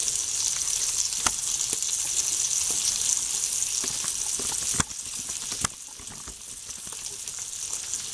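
Bacon, onion and sliced turkey sausage sizzling in a stainless steel skillet: a steady frying hiss with a few sharp clicks, dropping in level about five seconds in.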